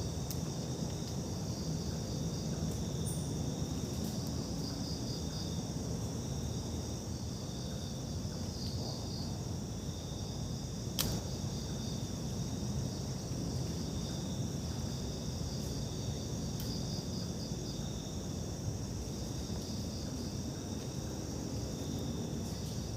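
Insects such as crickets trilling steadily in a chorus, with short pulsed chirps repeating through it. A low rumble sits underneath, and there is one sharp click about eleven seconds in.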